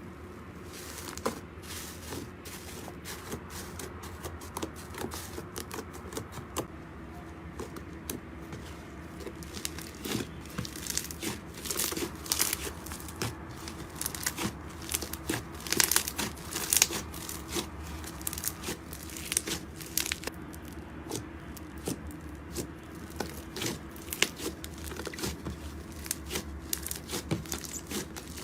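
Slime being squished and stretched by hand, giving off irregular sticky crackles and pops.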